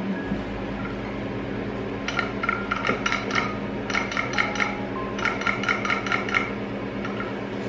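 Mytee Lite II 8070 carpet extractor running with its new Shurflo pump switched on, a steady hum throughout. About two seconds in come three bursts of rapid rattling, each a second or so long. The pump is not yet delivering water to the tool, which the owner suspects is a clogged line to the gun.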